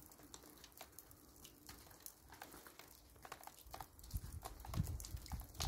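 Falling snow pattering faintly as irregular soft ticks. A low rumble builds from about four seconds in.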